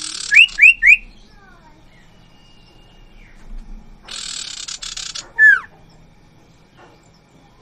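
A pair of sirtu (common iora) calling: a harsh rasping call followed by three loud, quick rising whistles, then another harsh rasp about four seconds in and a single falling whistle.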